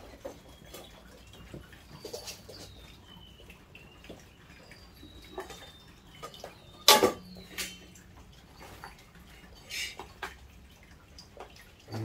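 Parts of a stainless steel pet water fountain being handled and fitted together: scattered light clicks and knocks, with one loud knock about seven seconds in.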